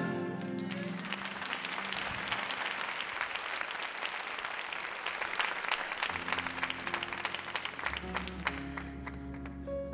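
A large congregation applauding, many hands clapping together and thinning out near the end. Sustained low instrumental notes come in under the clapping about six seconds in.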